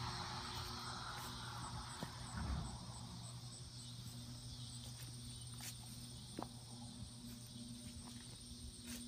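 Outdoor background: faint, evenly repeating insect chirping over a steady low hum, with a few light clicks and a soft thump about two and a half seconds in.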